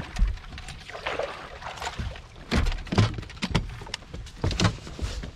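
Irregular dull thuds and knocks on a bass boat's deck, several in a row, the loudest about two and a half to three seconds in.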